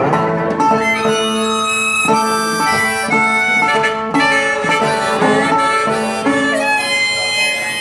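Instrumental break in an acoustic blues song: a harmonica playing a lead of held and bending notes over acoustic guitar.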